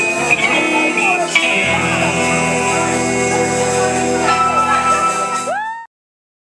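Live rock band (electric guitars, bass, drums and keyboard) playing, settling about a second and a half in onto a long held chord with heavy bass underneath. The sound cuts off suddenly near the end.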